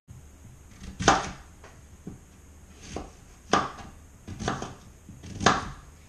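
Paring knife cutting apples into eighths on a cutting board: a series of sharp knocks as the blade goes through and hits the board, roughly one a second.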